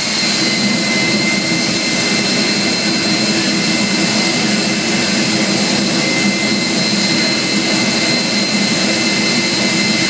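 Jet truck's turbine engine running steadily with the truck standing still before its run: a loud, even rush with a thin high whine over it.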